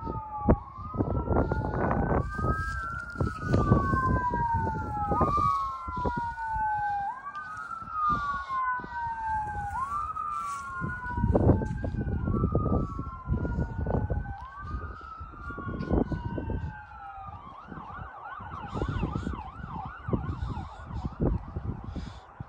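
Emergency vehicle siren sounding a wail, rising and falling about once every two seconds. About three-quarters of the way through it switches to a fast yelp.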